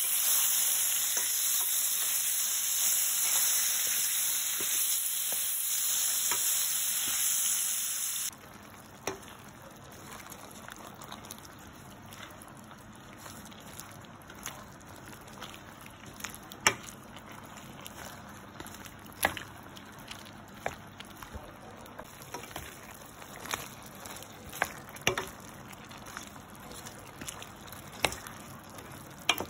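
Mushrooms, carrots and capsicum stir-frying in oil in a pan, with a loud, steady sizzle. About eight seconds in the sizzle drops off abruptly to a quieter hiss, and a spatula clacks against the pan as the vegetables are stirred.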